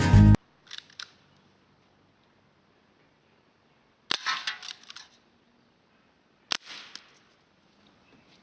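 Two shots from a CO2 air gun, about two and a half seconds apart, the first followed by a short rattle of smaller clicks. A couple of faint clicks come about a second in, and a few more near the end.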